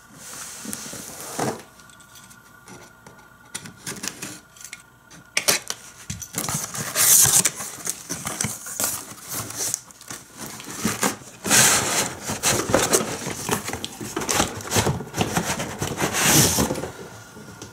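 Cardboard toy box handled and opened by hand. Packaging scrapes and rustles, with scattered knocks, sparse at first and busier from about six seconds in.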